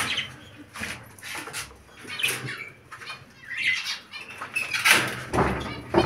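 Small cage birds fluttering their wings inside a wire cage, with irregular short rustles and rattles and a louder flurry near the end.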